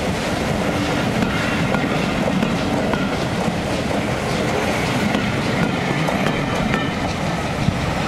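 Passenger coaches rolling past on jointed track: a steady rumble of steel wheels on rail, with clacks as the wheels cross a bolted fishplate rail joint.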